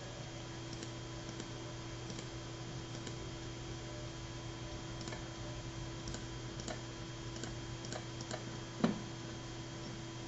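Faint, irregular clicking at a computer over a steady low electrical hum, with one louder knock about nine seconds in.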